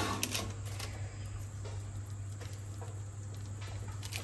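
Faint taps and soft parchment-paper rustle as a boiled potato is pressed flat with a plastic slotted spatula on a lined baking tray, a few small clicks near the start, over a steady low hum.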